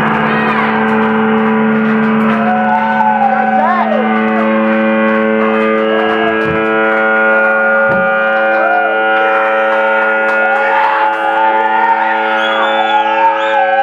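Live band's amplified instruments holding one loud sustained chord through effects, with echoing notes bending up and down in pitch over it.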